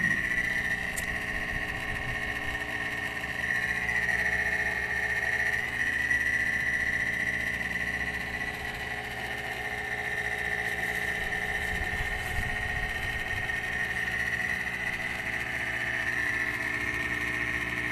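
Small electric motor running steadily, a low hum with a steady high-pitched whine over it, during refrigerator vacuuming and refrigerant charging work.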